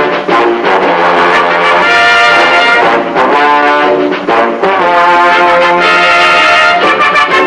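Brassy orchestral music, with trombone-like horns playing a melody of held notes.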